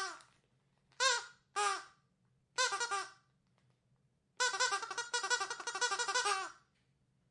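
Squeaky dog toy being squeezed: single squeaks that drop in pitch, a quick few in a row near three seconds in, then about two seconds of rapid repeated squeaking.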